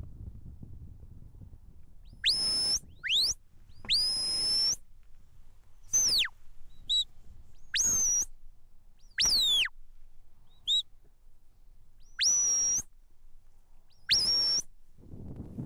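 Sheepdog handler's shepherd's whistle sounding commands to a working border collie bringing sheep in on the fetch: about ten sharp, high notes a second or two apart, some rising then held, others falling away, two of them only short blips. Light wind noise runs between the notes.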